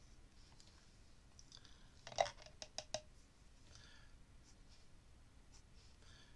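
Drawing stick scratching and dabbing ink on collage paper, faint, with a quick run of about five sharp clicks about two seconds in, the first the loudest.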